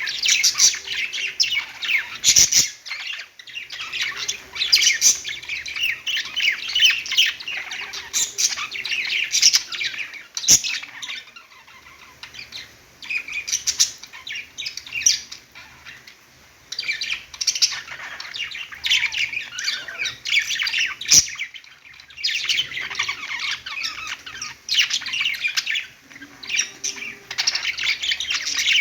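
A group of pet budgerigars chattering and warbling, with rapid high chirps and squawks in busy bursts and a quieter stretch a little before the middle. A few sharp clicks stand out among the calls.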